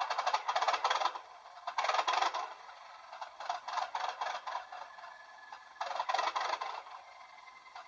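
Bachmann Class 37 model locomotive's DCC sound chip playing its diesel 'long start' start-up sequence through the small factory-fitted speaker. It comes as four rattling, clattering bursts, each about a second long, with thin sound and little bass.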